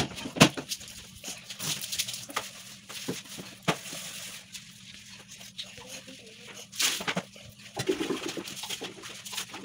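Scattered knocks, clicks and short scrubbing noises of a toilet bowl being cleaned by hand.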